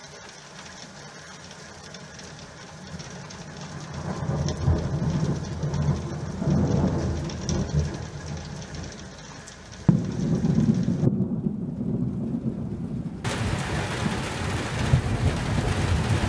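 Thunder rumbling during a thunderstorm, building a few seconds in. About ten seconds in a sudden loud clap sets off a long low rumble. Steady rain hiss runs under it.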